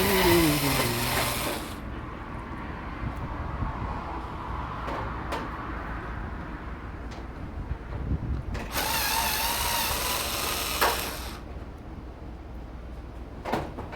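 Cordless drill-driver running in two short bursts while backing out screws: the first winds down in pitch in the first couple of seconds, the second starts about nine seconds in and runs for nearly three seconds. Light clicks of handling between and near the end.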